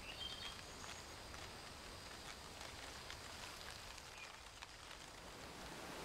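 Faint forest ambience: a low outdoor rumble with scattered small clicks and rustles, and a few brief high bird chirps, one near the start and another about four seconds in.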